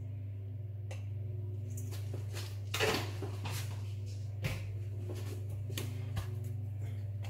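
A few light clicks and a short clatter of spice jars, a spoon and containers being handled and set down on a kitchen counter, over a steady low hum.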